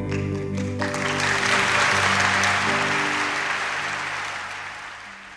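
Final acoustic guitar chord strummed and left ringing. An audience's applause swells about a second in and gradually fades.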